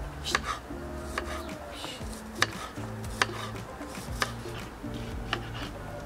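Knife chopping onions on a cutting board: sharp, irregular knocks roughly once a second, over quiet background music with low sustained notes.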